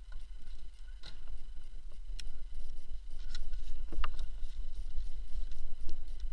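Metal carabiners and climbing hardware clinking as they are handled on a rope harness: about five sharp clicks, the loudest about four seconds in, over a steady low rumble on the microphone.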